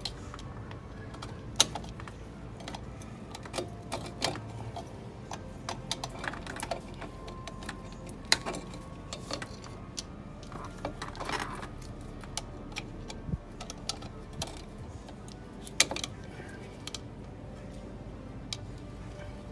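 Irregular metallic clicks and taps of pliers working a retaining clip on a drum brake shoe's parking-brake lever, squeezing the clip closed, with a few sharper clicks standing out.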